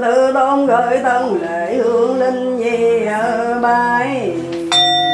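Sung Buddhist funeral chanting, a single voice sliding slowly between held notes. Near the end a bell is struck once and rings on.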